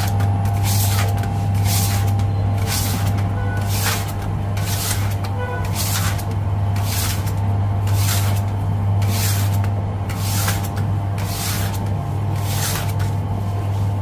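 Bakery machinery running with a steady low hum and faint steady whines. Over it comes a short swishing stroke repeating about one and a half to two times a second.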